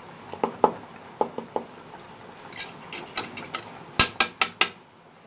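A metal fork clinking against an aluminium pot of boiled sweet potatoes as salt is stirred in: scattered sharp clinks, with a quick run of louder ones about four seconds in.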